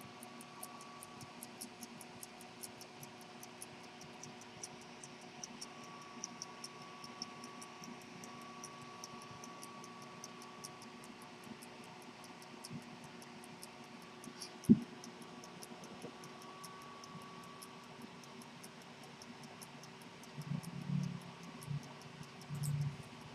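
Antique 18k gold jumping-seconds pocket watch ticking, a faint, quick and even run of ticks. There is one sharp knock about 15 seconds in and some low handling bumps near the end.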